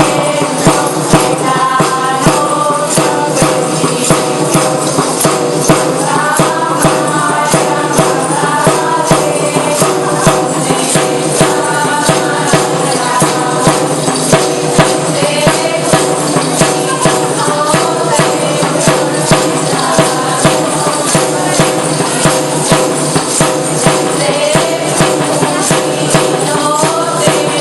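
Asturian folk music: tambourines beat a steady rhythm under a melody.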